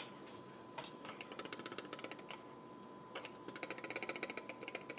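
Dried herbs being shaken out of a spice shaker into a bowl of flour: rapid rattling clicks, about ten a second, in two bursts.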